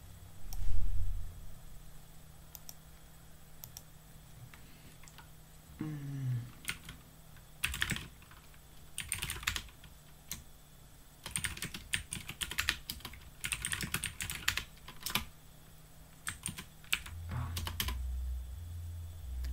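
Typing on a computer keyboard: irregular runs of key clicks, densest in the second half. A short low thump just under a second in is the loudest sound.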